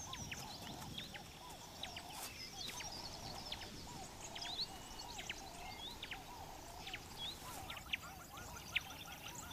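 Faint natural ambience of many birds calling: scattered quick high chirps over a steady run of lower, repeated calls.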